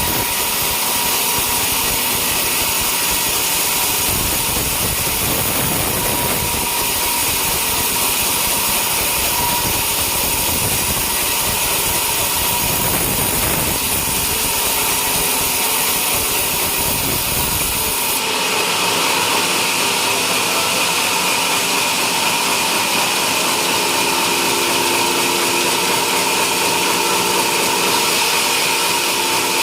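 Home-made sawmill running steadily while its blade saws through a coconut palm trunk. The sound changes abruptly about two thirds of the way in, losing its low rumble and turning harsher.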